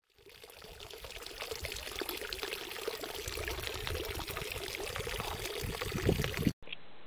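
Running water, like a small stream, fading in at the start and cut off abruptly near the end.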